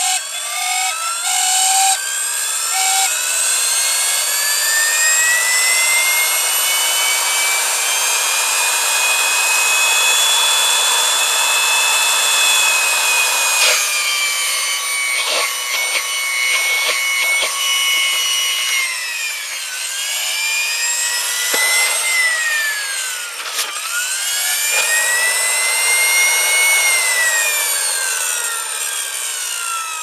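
Vacuum cleaner motor run on a DC bench power supply, its bearings already somewhat worn: a whine rising in pitch as the voltage is turned up, holding high, then falling and climbing again twice. In the second half it clicks and briefly drops in speed, which the owner puts down to a brief loose contact.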